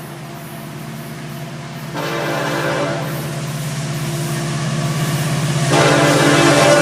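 Florida East Coast Railway freight train approaching: a steady diesel locomotive engine drone, then the locomotive's multi-tone air horn sounding about two seconds in, growing louder with a second, stronger blast near the end.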